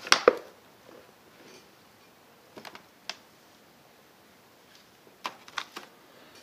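Plastic clicks and knocks as the auto-darkening lens cartridge of a Lincoln Viking 3350 welding helmet is unlatched, lifted out and set down on the bench. Two loud clicks right at the start, a few faint clicks in the middle, and a quick cluster of taps near the end.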